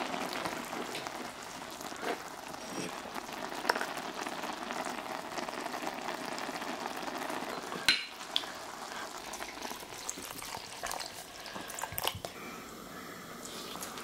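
A pot of budae-jjigae stew bubbling at a simmer, a steady bubbling hiss. A few sharp clinks of a metal ladle against the pot and bowl cut through it as the stew is served.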